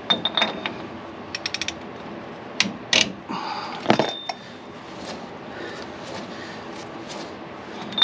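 Ratchet and socket working the rear wheel hub's bearing adjusting nut to seat the wheel bearing. There are short runs of ratchet clicks and ringing metal clinks, and the loudest clank comes about four seconds in.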